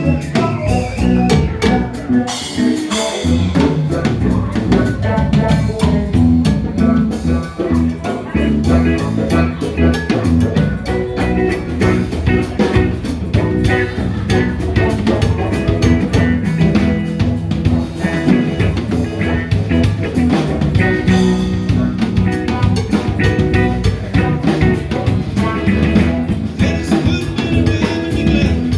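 A band playing an upbeat song, with a drum kit keeping a steady beat under guitar and other instruments.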